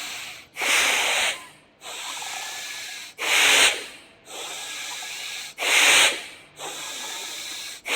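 A man doing Bhastrika pranayama (bellows breath) at a moderately quickened pace. Each forceful, noisy rush of air is followed by a quieter, longer one, three full breaths in all.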